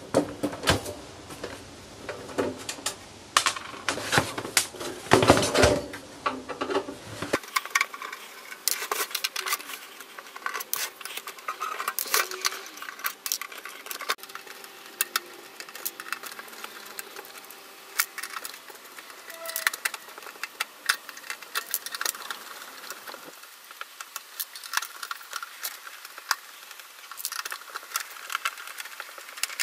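Screwdriver working the screws out of a Sony DVP-NS530 DVD player's sheet-metal case: a long run of small metallic clicks, ticks and scrapes.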